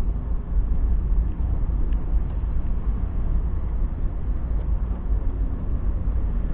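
Car driving noise heard from inside the cabin: a steady low rumble of the engine and the tyres on the road.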